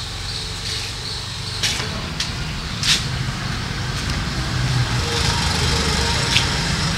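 Motor scooter's small engine idling steadily, with a few sharp clicks about a second and a half, three seconds and six seconds in.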